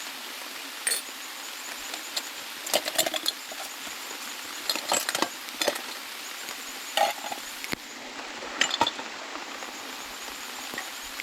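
Steady hiss of rain with scattered sharp knocks and clinks of hands working with wood and camp gear, in irregular clusters.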